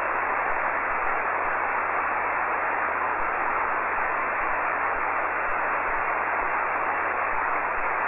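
Steady hiss of HF band noise from a shortwave transceiver's receiver on the 40-metre amateur band with no station transmitting, cut off to the audio passband around 3 kHz, with a faint low hum beneath it. It stops abruptly at the very end.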